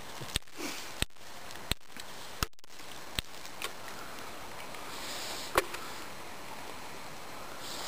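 A steady hiss with about six sharp clicks and knocks, spaced unevenly and loudest about five and a half seconds in. A short breathy sniff comes about five seconds in, and another near the end.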